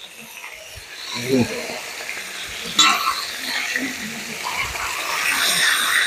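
Marinated chicken sizzling as it fries in oil on a large tawa, being turned and stirred, with one sharp click about three seconds in.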